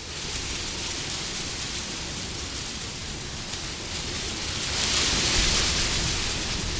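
Steady wind noise, swelling in a gust about five seconds in and then easing.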